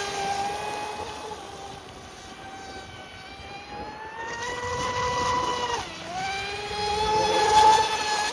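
Electric 4S RC speedboat running on choppy water: a high motor-and-prop whine that swells and fades as the boat passes. Its pitch dips sharply about six seconds in, then climbs back.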